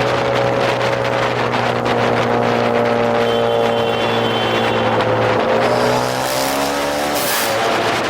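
Honda Accord 2.0T's turbocharged four-cylinder running through a catless downpipe exhaust. The engine note holds a steady pitch, then drops about five seconds in and shifts again near the end.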